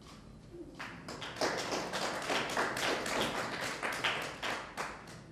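Audience applauding: a few claps about a second in that swell into steady applause and fade out near the end.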